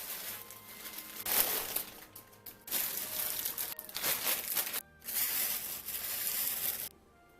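Plastic grocery packaging crinkling as it is handled, in three stretches of about two seconds each, over faint background music.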